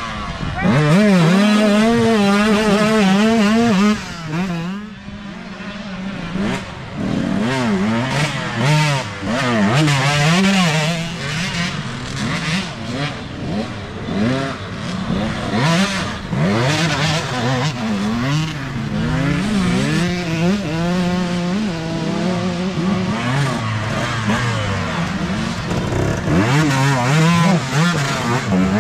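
Several youth dirt bike engines revving up and easing off as the bikes ride through a muddy turn, their sounds overlapping. It is loudest as one bike passes close in the first few seconds, dips briefly, then rises again as more bikes come through.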